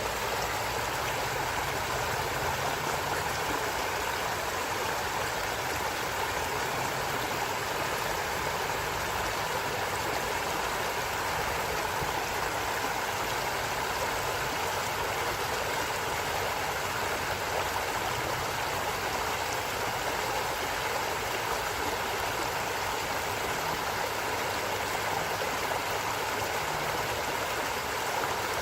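A stream of water flowing steadily: an even, unbroken rushing that does not change.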